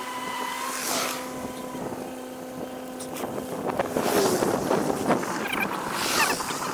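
Wind gusting on the camera microphone over a steady engine-like hum, which stops about four seconds in.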